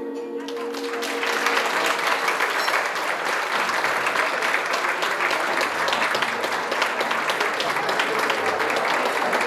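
Audience applauding, a steady patter of many hands clapping that builds within the first second as the last music note fades out.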